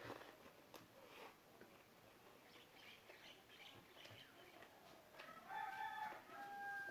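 Faint clucking of a chicken, with louder calls from about five seconds in and one drawn-out call near the end, over a few faint clicks.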